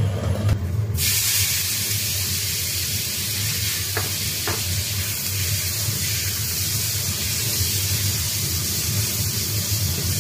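Minced pork hitting hot oil in a wok: a sizzle starts suddenly about a second in and carries on as a steady hiss while the meat is stirred with a spatula. Two light taps sound near the middle, over a steady low hum.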